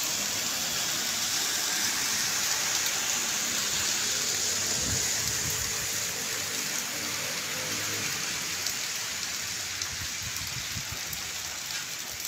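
Heavy monsoon rain falling steadily, an even hiss of rain on roofs and pooled floodwater.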